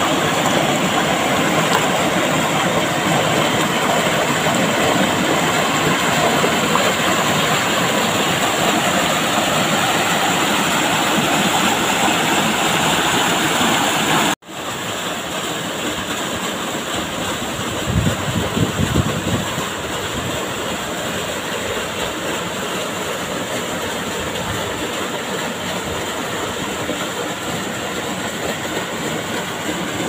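Rushing white water of a rocky waterfall cascade, a loud steady rush. About halfway through it cuts out for an instant and comes back a little quieter, as a small waterfall pouring into a pool, with a few low thumps a few seconds later.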